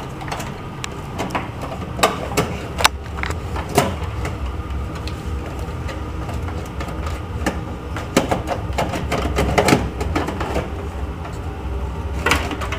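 Scattered clicks, taps and scrapes of an optical drive being slid into a steel PC case's drive bay while its cables are handled, over a steady low hum.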